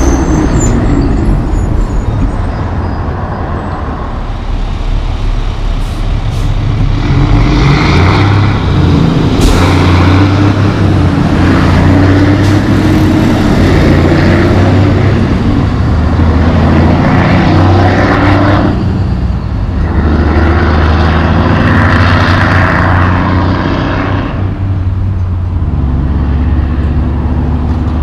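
Diesel engines of heavy trucks, a loaded logging truck among them, running hard as they pull through an intersection. The engine pitch climbs and drops several times, over tyre and traffic noise, with short air-brake hisses.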